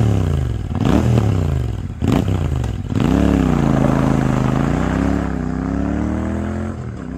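Royal Enfield Shotgun 650's parallel-twin engine accelerating away, rising in pitch and dropping twice through gear changes in the first three seconds. It then holds a steadier note that eases and grows quieter as the bike rides off on gravel.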